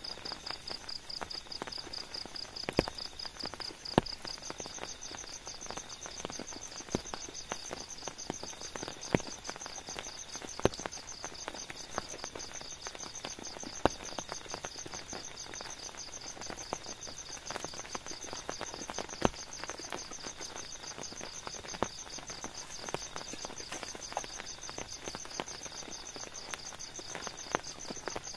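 Night insects trilling in a steady, fast-pulsing high drone, with a second, higher-pitched trill joining about four seconds in. Scattered raindrops tap irregularly on the tent, a few sharp louder taps standing out above the drone.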